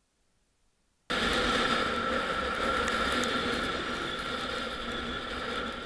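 Near silence, then about a second in the sound of a motorcycle on the move cuts in suddenly: the engine running under a steady rush of wind and road noise on a camera mounted on the bike, with a steady whine through it.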